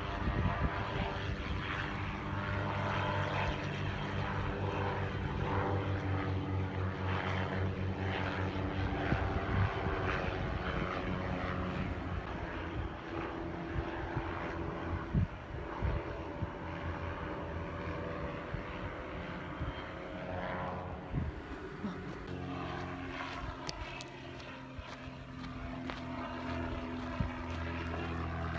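A steady low drone of several held tones, which shift to new pitches a few times, with a few scattered knocks.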